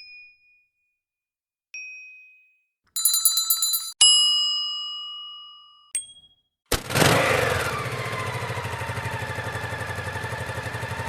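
A string of short sound effects: a soft ding, a quick jangle of ringing tones, a clear bell-like ding that fades over about two seconds, and another short ding. Then, about two-thirds of the way in, a loud buzzing drone starts suddenly and runs steadily with a fast flutter, like a small motor.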